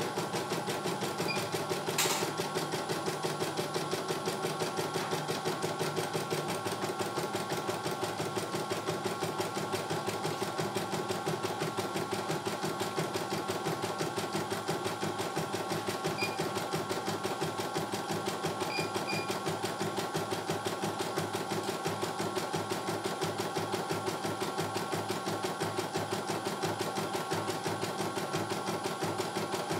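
CNY E900 computerized embroidery machine stitching a design: a fast, steady needle rhythm with the hoop carriage moving. One sharp click sounds about two seconds in.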